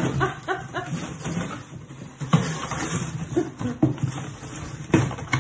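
A small dog clawing and scratching at a cardboard box, scraping and tearing the cardboard in quick irregular strokes with sharp clicks. Near the start it gives a short run of quick whines.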